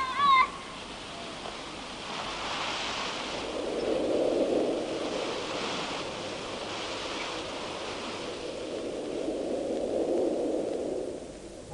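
A rushing noise that swells and fades in slow waves, loudest about four seconds in and again near the end; a cat meows briefly right at the start.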